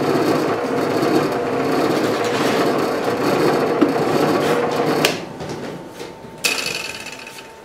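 Bench drill press running while a countersink bit cuts into a plywood panel, a steady dense machine-and-cutting noise. About five seconds in there is a click, and the noise then fades away gradually with a faint steady hum.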